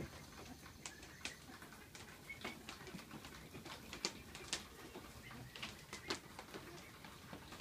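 White domestic goose making faint, irregular short clicking sounds, about a dozen sharp ticks spread over several seconds.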